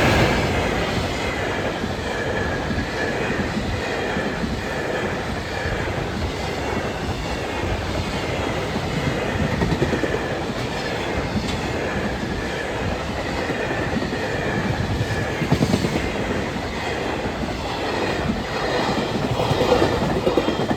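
A train running past close by, its wheels clattering over the rail joints, with a faint wavering whine above the steady rumble.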